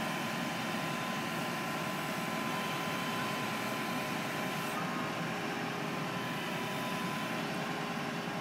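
Knuckle boom truck's engine and hydraulic system running steadily: a constant drone with a faint, even whine.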